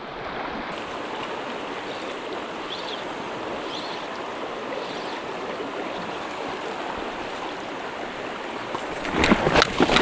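Shallow stream running over stones: a steady rush of water. About nine seconds in, louder splashing starts close by.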